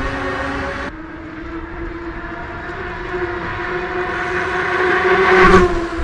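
An Engwe EP-2 Pro e-bike's electric hub motor whining at speed on its fat tyres. The whine drops a second in, then grows louder as the bike approaches, is loudest as it passes about five and a half seconds in, and falls away with a slight drop in pitch.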